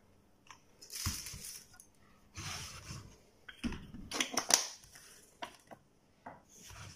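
Handling noises on a workbench: rustling and scraping with several sharp clicks and knocks, as a plastic steam iron and its cord are put down.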